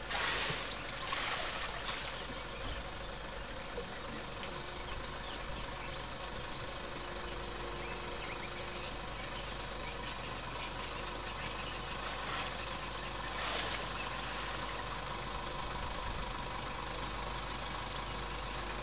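Safari vehicle's engine idling steadily, with a few short hissing bursts: two near the start and one about thirteen seconds in.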